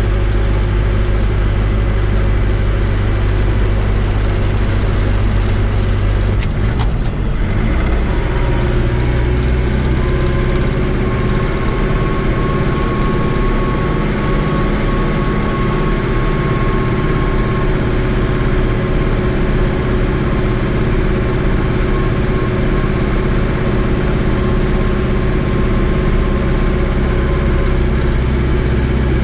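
Fiat 80-90 DT tractor's diesel engine running steadily under way, heard from inside the cab. Its note changes about seven seconds in, and a faint high whine comes in soon after and fades out later.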